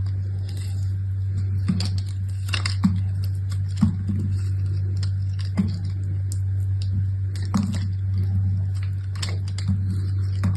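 Soap packaging being handled and unwrapped: scattered, irregular crinkles and clicks over a steady low hum.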